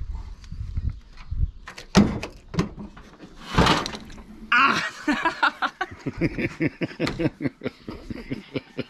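Clunks of a Ford van's bonnet being unlatched and raised, with a sharp knock about two seconds in as the bonnet catches a man on the head. From about halfway he groans and laughs in quick bursts.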